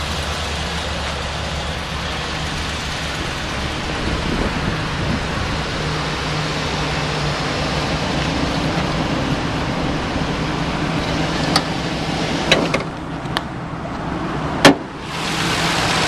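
Ford F-350's 5.4-litre gasoline V8 idling steadily. Near the end come a few sharp clicks and one loud clunk as the hood latch is worked and the hood is opened.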